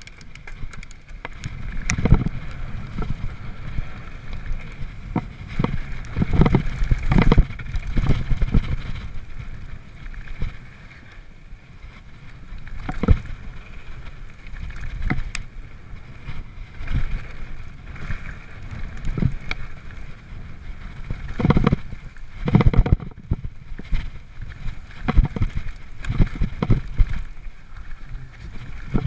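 Mountain bike rolling fast down a rough dirt and rock trail: a continuous rumble of tyres and wind on the microphone, broken by frequent irregular knocks and clatters from the frame, chain and suspension over rocks and bumps, in louder rough patches.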